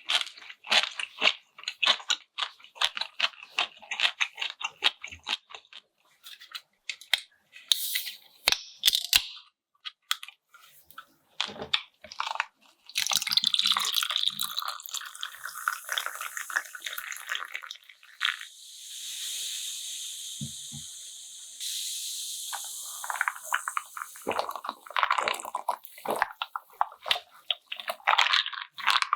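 Close-miked eating sounds: wet chewing and crunching of food in quick, irregular clicks and crackles. A stretch of steadier hissing noise runs through the middle.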